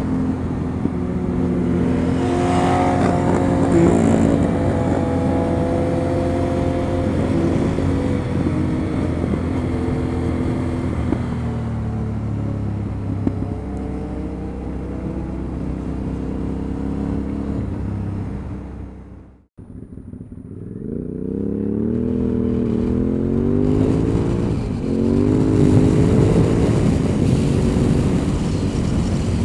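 Motorcycle with an Akrapovic exhaust running at a steady road speed with wind noise over the engine, the note easing off a little after about ten seconds. After a sudden cut about two-thirds of the way through, the engine accelerates, its pitch climbing several times over.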